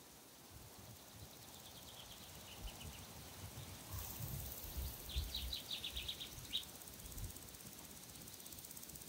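Faint outdoor ambience: two short runs of rapid, high chirps, the second louder, a few seconds apart, over low rumbling.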